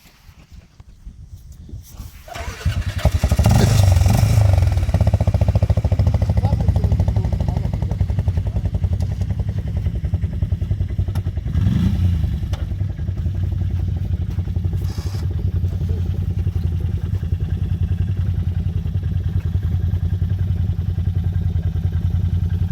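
ATV engine coming in about two and a half seconds in, revving up, then running steadily, with another short rev near the middle.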